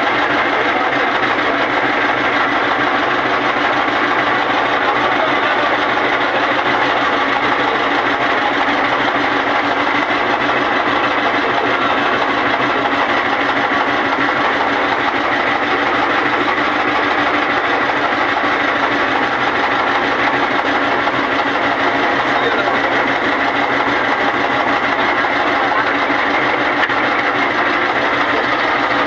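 Boat engine running steadily, holding an even pitch and loudness throughout.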